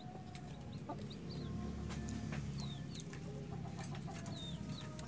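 Newly hatched chicks peeping in a few short, high notes that fall in pitch, over the low, steady clucking of the brooding mother hen.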